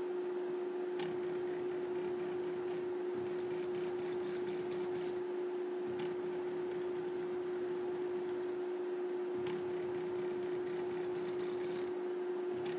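Small stepper motors of a mini CNC machine whining at one steady pitch while it moves a pen over paper, with a few faint ticks.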